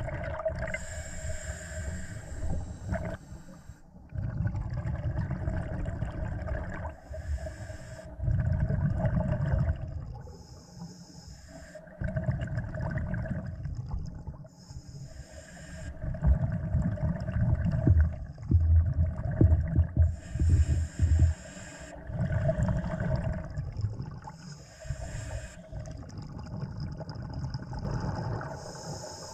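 Scuba diver breathing through a regulator underwater: a short hissing inhale followed by a longer rush of exhaled bubbles, repeating every four to five seconds, with a steady hum underneath.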